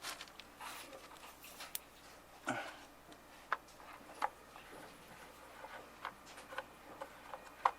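Scattered light clicks and taps with brief rustling as a plastic wiring harness and its connectors are handled.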